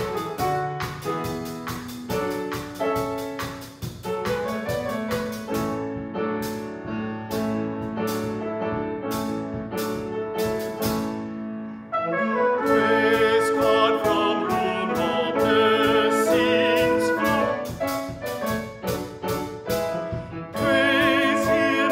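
Instrumental music: a grand piano playing with a drum kit keeping time on cymbals and drums. About halfway through, a louder sustained melody line with vibrato joins in over them.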